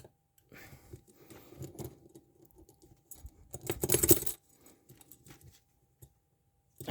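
Steel handcuffs and their chain clinking and rattling while a shim is worked into a cuff: scattered small metal clicks, with a louder burst of clinking about four seconds in.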